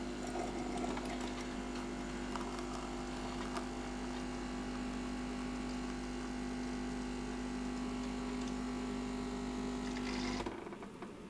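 Polaris PACM 2060AC automatic coffee machine running with a steady hum as it dispenses a latte, stopping abruptly about ten and a half seconds in as the drink cycle ends.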